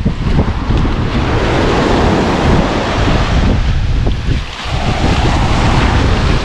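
Sea surf washing up over wet sand at the water's edge, the wash swelling twice and briefly falling away about four and a half seconds in, with heavy wind rumble on the microphone.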